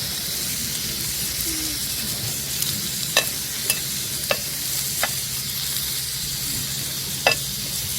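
Pork neck sizzling in a hot pan, a steady hiss with a few sharp clicks scattered through the middle.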